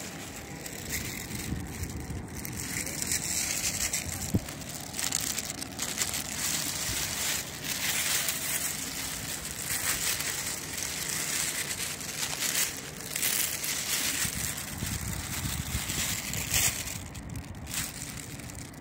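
Thin plastic bag crinkling and rustling irregularly as it is handled and opened, with a sharp tap about four seconds in.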